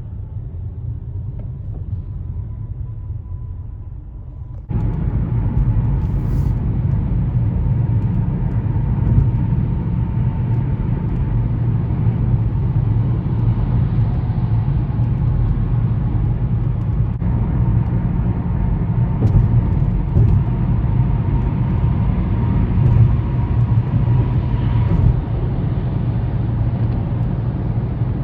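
Steady road and engine rumble of a moving car on the highway, heard from inside the car. About five seconds in it jumps suddenly louder and brighter, then holds steady.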